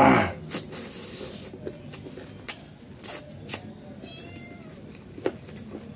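Close-up eating sounds: a loud slurp as a handful of curry and rice goes into the mouth, then chewing with sharp lip-smacking clicks every half second or so. A faint high, wavering cry sounds about four seconds in.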